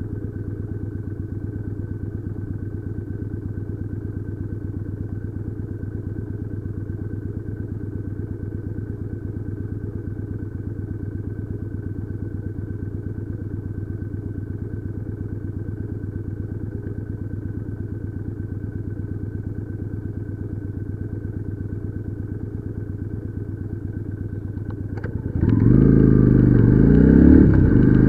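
Motorcycle engine idling steadily with an even low pulse, then revving up and accelerating near the end, much louder.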